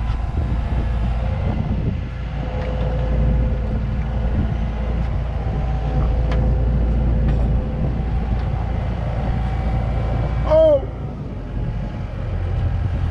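Kubota compact track loader's diesel engine running steadily under load as it lifts a scrap car in its grapple bucket. About ten and a half seconds in, a brief squeal rises and falls.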